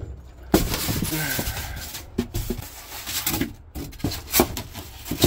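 Rigid foam insulation boards being handled and laid onto wooden bed slats: scraping and rubbing of foam on foam and wood, with a few sharp knocks as the boards drop into place.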